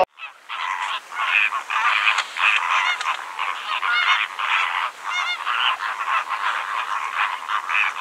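A flock of flamingos calling: many goose-like honks overlapping in a continuous din.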